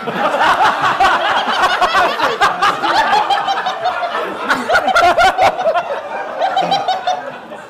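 Live audience laughing loudly, many voices at once, with scattered sharp claps, easing off over the last couple of seconds.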